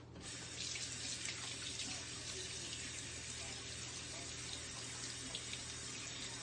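Kitchen tap turned on and running steadily into the sink.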